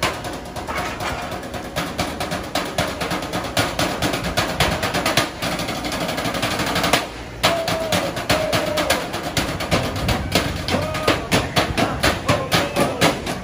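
A drum group playing a fast, dense rhythm of strikes, with a brief break about seven seconds in before the drumming picks up again.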